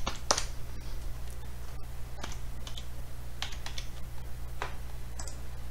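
Computer keyboard keystrokes: about half a dozen separate clicks spread out, over a steady low hum.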